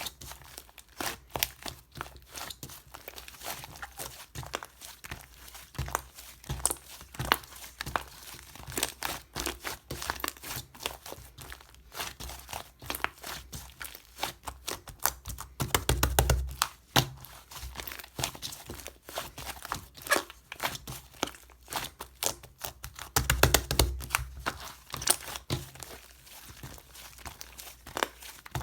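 White fluffy clay slime being squeezed, pressed and folded by hand, giving dense, irregular crackling clicks and small pops. It gets louder with low thumps twice, a little past the middle and again later.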